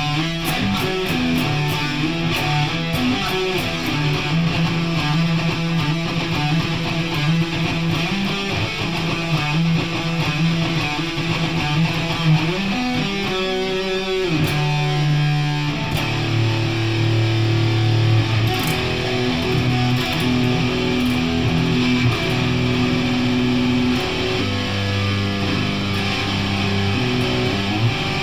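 Electric guitar music, held notes changing every few seconds, with a brief sliding pitch change about halfway through.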